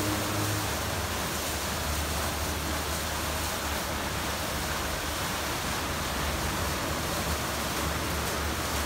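Aquarama Stargate S4 rollover car-wash gantry at work: rotating side brushes and water spray hitting the car, giving a steady rushing noise over a low, even hum.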